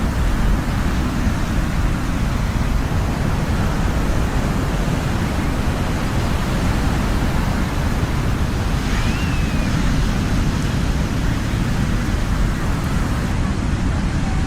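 Ocean surf washing steadily, a continuous deep rumble of waves with no distinct break standing out.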